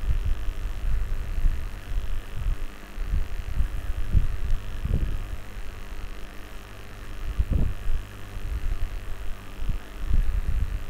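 Steady low electrical hum from the recording setup, with irregular low thumps and rumbles on the microphone, a few stronger ones around the middle.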